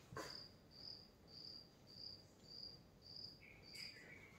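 Faint cricket chirping: short, evenly spaced high chirps a little under twice a second. A single click just after the start.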